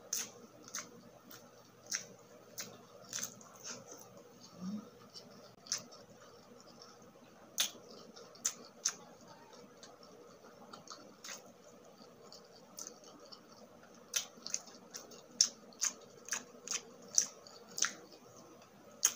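Close-miked mouth sounds of someone chewing food: sharp, wet smacks and clicks at irregular intervals, coming faster near the end.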